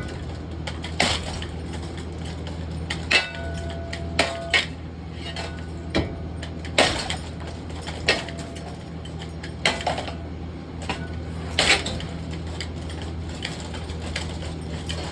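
Irregular metal clanks and clinks, about a dozen sharp hits spread unevenly, as a Harbor Breeze Barnstaple Bay ceiling fan is smashed apart. A few hits leave a brief metallic ring, over a steady low hum.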